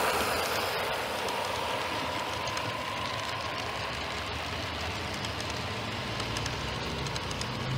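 HO-scale model log cars rolling past on track: a steady rolling rumble with light rapid clicking from the wheels. The locomotive sound ahead fades away over the first few seconds, and a low hum builds near the end.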